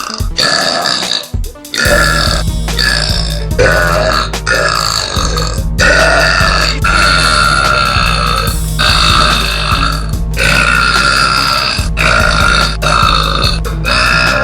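A girl burping over and over: a string of long, drawn-out burps, one after another with only short breaks between them.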